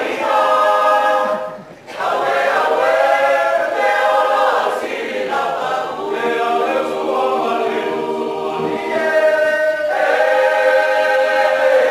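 Mixed choir of young men and women singing a cappella, several voices sustaining notes together, with a short breath break about two seconds in.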